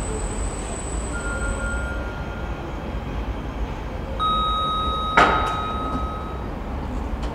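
Metro-station glass lift arriving at the floor over a steady low hum. About four seconds in, a single electronic tone is held for about two seconds, and a sharp clunk about a second into the tone is the loudest moment, as the car stops and its door mechanism engages.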